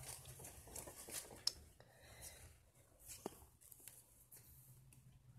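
Nearly silent room tone with faint rustling and a few soft, sharp clicks from a phone being handled and turned, the loudest click about three seconds in.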